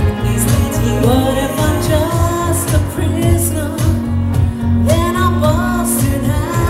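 A woman singing into a handheld microphone over amplified backing music with a steady beat and bass.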